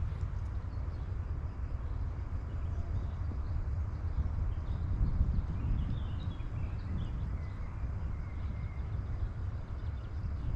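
Woodland ambience: a steady low rumble, with faint bird chirps partway through.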